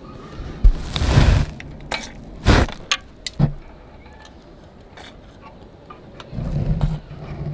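Aerosol can of WD-40 penetrating oil spraying onto rusted hex bolts: a half-second hiss about a second in and a shorter one a second later, to loosen the seized bolts. Clicks and low handling knocks around them.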